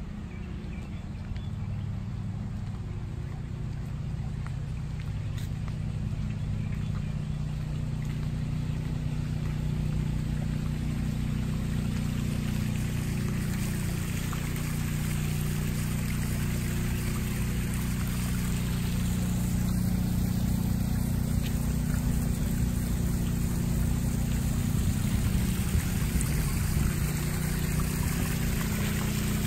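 Backyard koi pond waterfall splashing and trickling into the pond, growing slowly louder as it draws near. A steady low hum runs underneath.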